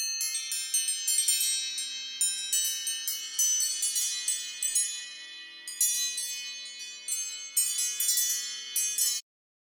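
iPhone ringtone of high, tinkling wind-chime notes, struck in irregular flurries, each left to ring out. It cuts off shortly before the end.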